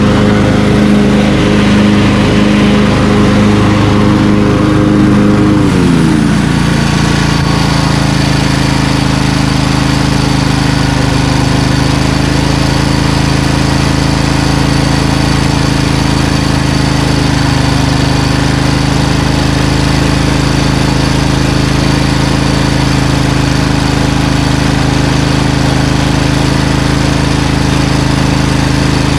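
Briggs & Stratton 20 hp V-twin engine of a Craftsman LT2000 lawn tractor running under way; its note drops to a lower pitch about six seconds in and then holds steady.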